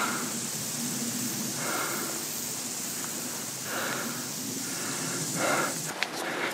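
A walker breathing audibly, three breaths about two seconds apart, over a steady hiss.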